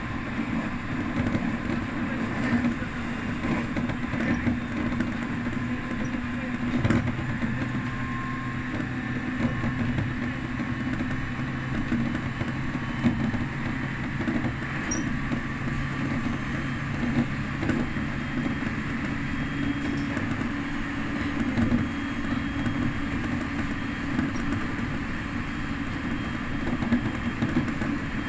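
Electric train running along the line, heard from inside the car just behind the driver's cab: steady rolling noise of wheels on rail with a low, even hum.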